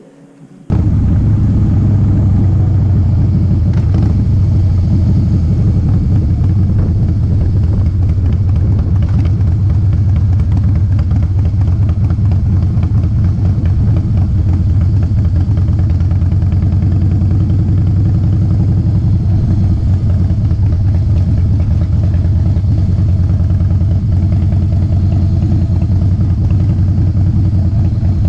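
Motorcycle engine running steadily at low speed, heard from on board the bike as a deep, even drone. It starts abruptly about a second in.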